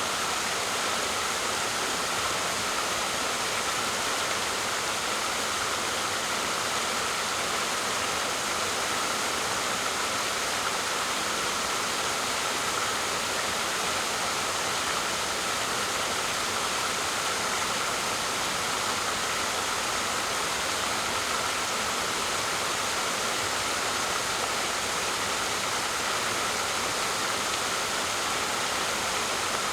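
Waterfall: water falling and rushing in a steady, even hiss that does not change.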